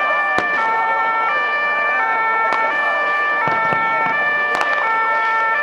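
Two-tone emergency vehicle sirens switching between high and low notes about every three-quarters of a second, over crowd noise, with a few sharp bangs of firecrackers.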